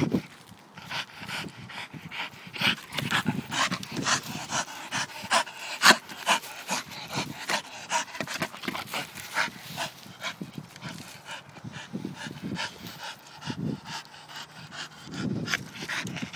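Staffordshire bull terrier panting while it scuffles and noses about in dry leaf litter, a quick irregular run of rustles and crackles.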